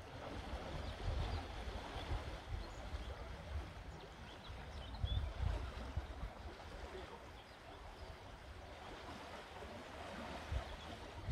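A river flowing fast, making a steady rushing sound, with gusts of wind rumbling on the microphone now and then.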